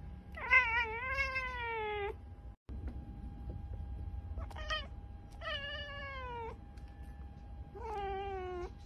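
Domestic cat giving four drawn-out, wavering meow-like calls, each sliding down in pitch; the second call is short. This is the excited calling a cat makes when it spots a bird or insect it cannot get to.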